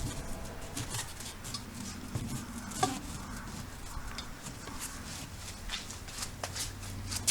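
Irregular clicks, scrapes and light knocks of hand tools working a car tyre on its wheel, with one sharper click about three seconds in.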